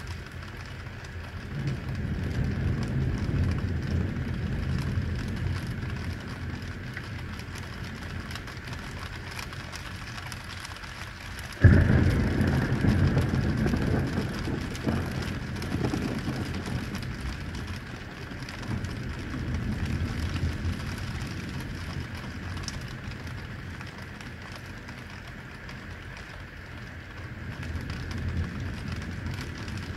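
Heavy rain falling steadily over a city, with low rolling thunder. About twelve seconds in, a sudden sharp thunderclap breaks and rumbles away over several seconds, and more distant rumbles swell and fade later.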